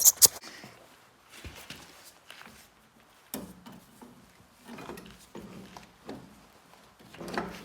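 Clicks, knocks and scraping of metal as a replacement starter motor is worked into place on a Massey Ferguson 135 tractor, with sharp clicks at the very start and irregular handling noises after.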